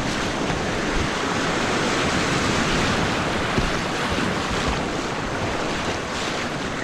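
Steady rush of whitewater on a river in flood, running high at about 3000 cfs.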